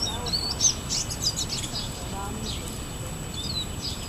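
Songbirds chirping: a cluster of short, quick, sweeping chirps in the first two seconds and a few more near the end.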